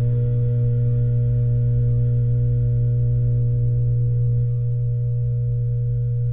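Laboratory incubator humming steadily: a strong low hum with several fainter steady tones above it.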